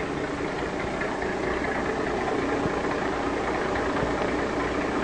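Machinery running steadily: a low engine drone under an even rushing hiss, growing slightly louder.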